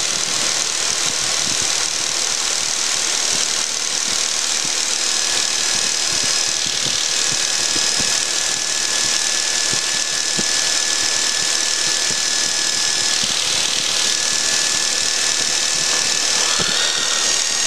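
Cessna 172's piston engine running at high power, a loud steady drone in the cabin. From about five seconds in, a steady high-pitched tone from the stall warning horn sounds as the airspeed bleeds off toward the stall, stepping slightly higher in pitch near the end.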